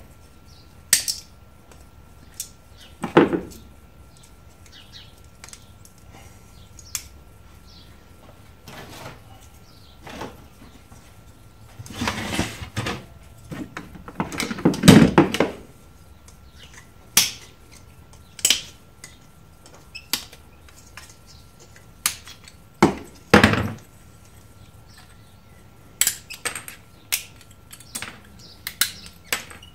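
Hand tools snipping and prying apart a satellite set-top box: scattered sharp clicks and snaps of side cutters and pliers cutting wires and plastic. A louder stretch of rattling and clattering in the middle, as the small cooling fan comes out, and a knock a few seconds later.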